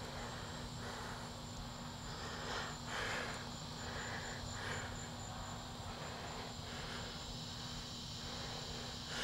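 Faint scraping and handling noises of hand tools as bolts are undone with an Allen key, heard as short scratchy sounds every second or so, over a steady low hum and a thin high-pitched whine.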